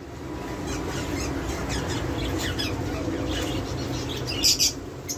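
African grey parrot making short chirps and squawks, with the loudest calls about four and a half seconds in.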